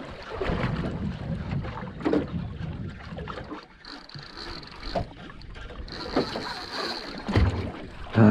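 Wind buffeting the microphone and water lapping against the hull of a small drifting boat, with a few short knocks against the boat.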